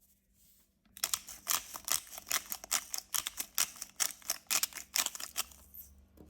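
A rapid run of sharp clicks and taps, about five a second, starting about a second in and stopping shortly before the end.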